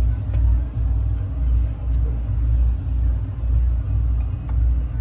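Loud low rumble that swells and dips unevenly throughout.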